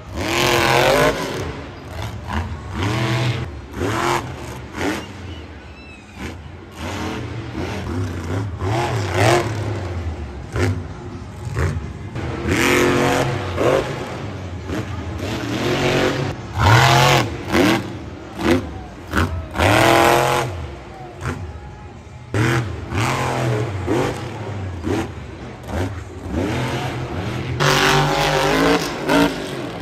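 Over Bored monster truck's supercharged V8 engine revving hard in repeated throttle bursts, its pitch sweeping up and falling back again and again as the truck drives over the dirt jumps.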